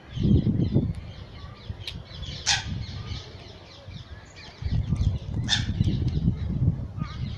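Birds chirping and calling, with two louder short calls about two and a half and five and a half seconds in. A heavy low rumble on the phone's microphone comes in right at the start and again over the second half.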